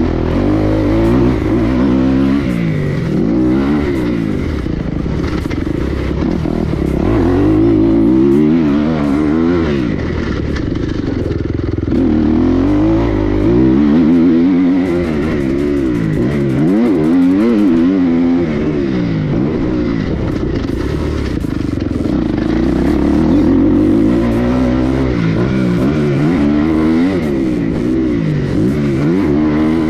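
Motocross dirt-bike engines revving hard and easing off over and over, the pitch climbing and dropping with each run of throttle and gear changes.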